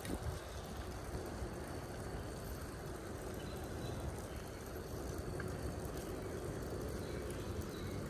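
Steady rush of wind over a handheld microphone, with the low rumble of bicycle tyres rolling on a concrete path, while riding.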